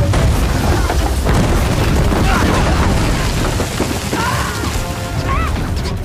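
Action-film explosion: a heavy boom with a long, deep rumble and scattered sharp crashes, mixed with a dramatic music score and shouted cries.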